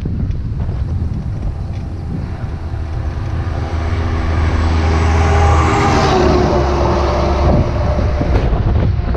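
A motor vehicle passes by. It grows louder to a peak about six seconds in, and its pitch drops as it moves away, over a low rumble of wind on the microphone.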